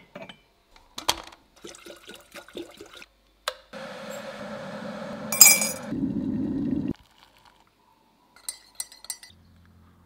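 Ceramic mugs clinking and knocking against each other as one is lifted off a cupboard shelf. Then a glass electric kettle boils hard for about three seconds, with one sharp bright clack in the middle. A few faint clinks come near the end.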